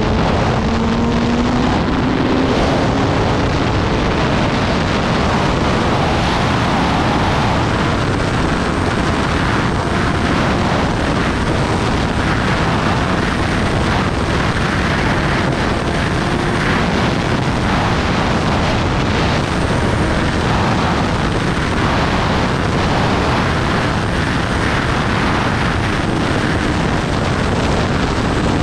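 Kawasaki Ninja ZX-10R's inline-four engine riding at speed, its note mostly buried under steady wind rushing over the microphone. The engine's pitch rises briefly at the start.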